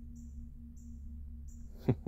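Outdoor evening ambience: three short high chirps repeating about every 0.7 s over a steady low hum. Near the end comes a brief, louder falling sound.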